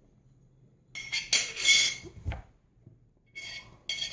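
Small metal and glass parts of a ceiling fan light fixture clinking and jingling as they are handled, with a ringing tone. It comes in two bursts: a longer one about a second in and a shorter one near the end.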